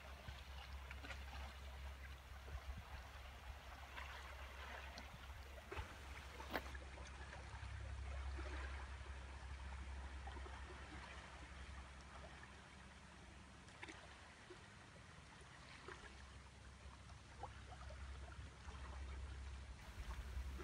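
Faint ambience of a calm sea cove: small waves lapping and trickling among the shore rocks, with scattered small splashes and a low, uneven wind rumble on the microphone.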